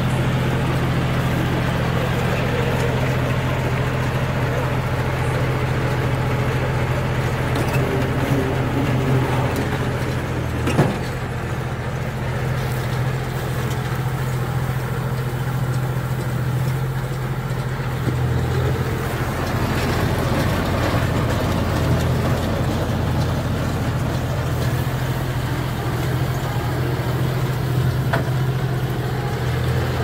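John Deere 5045D tractor's three-cylinder diesel engine running steadily under load while it drives a mini round baler picking up straw. There is one sharp knock about eleven seconds in.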